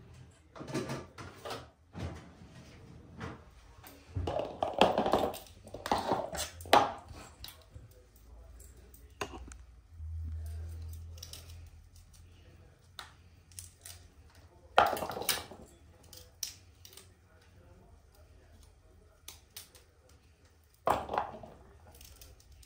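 Kitchen handling noises while Brussels sprouts are trimmed and cleaned: rustling, light clicks and clinks of hands, knife, metal colander and bowls, with louder clatters about five, fifteen and twenty-one seconds in and a brief low hum about ten seconds in.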